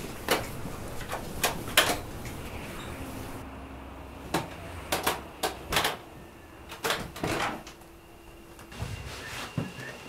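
Scattered short knocks and clicks, about a dozen at irregular intervals, some in quick pairs.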